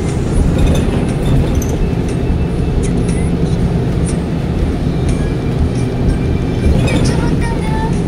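Inside a moving city bus: a steady engine drone and road rumble, with a few short squeaks near the end.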